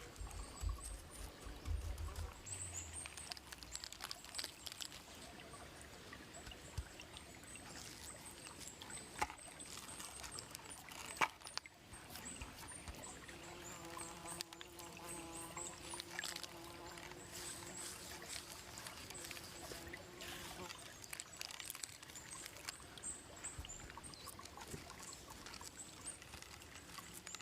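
Campfire crackling, with scattered sharp pops and clicks throughout. A steady pitched tone, an unidentified hum, runs for about seven seconds in the middle.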